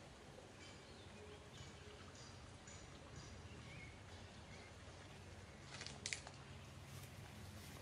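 Near silence: faint outdoor background with a low steady hum, broken by a brief sharp rustle about six seconds in.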